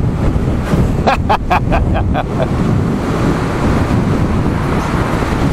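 Wind buffeting the camera microphone with road and tyre rumble from a moving electric bike. About a second in comes a quick run of about six short pulses, fading away.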